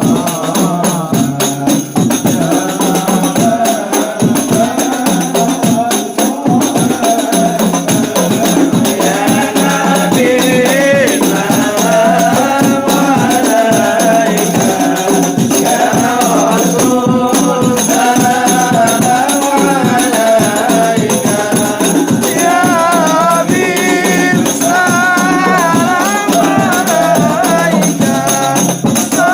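Group devotional singing, sholawat-style chant, over frame drums with jingles beating a fast, steady rhythm.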